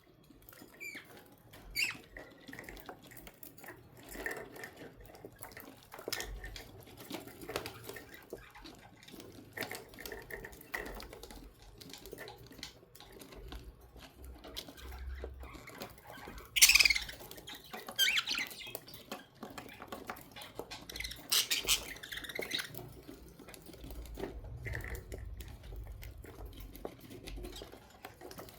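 Pet budgerigars chirping and chattering in short high calls, with a few loud, sharp calls falling in pitch about halfway through.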